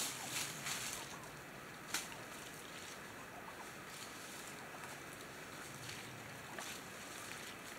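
Wild turkeys foraging: soft rustling and scratching in leaf litter and gravel, with a sharp click about two seconds in, over a steady background hiss.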